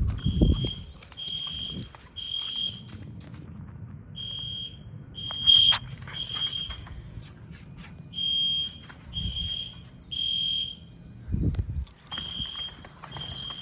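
Fire alarm sounder beeping a single high tone in the temporal-three evacuation pattern: three half-second beeps, a pause, then three more, repeating about every four seconds. A few low thumps and clicks sound between the beeps.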